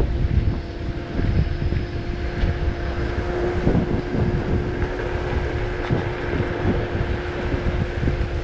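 Wind buffeting the microphone while riding a Lime electric rental scooter at speed, a heavy rumble with a steady hum over it and a few light knocks from bumps.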